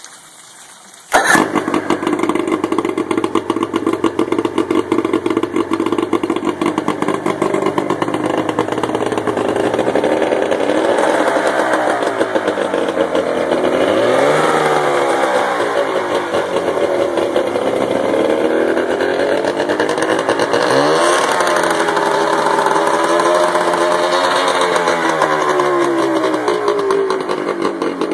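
1987 Evinrude VRO 40 two-stroke outboard motor starting about a second in, then running with its cowling off, its revs rising and falling several times in the second half.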